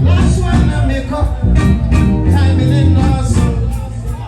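Reggae music with a heavy, pulsing bass line and a singing voice.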